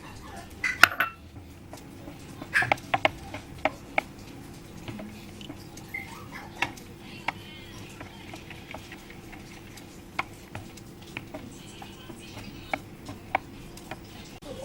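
Kitchen utensils clinking and tapping against bowls and dishes, in scattered sharp knocks that are busiest in the first few seconds.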